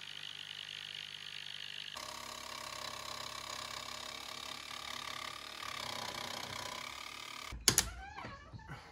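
Cordless drill running steadily against the ambulance body's roof-edge trim, in a few short clips. Near the end come two sharp knocks.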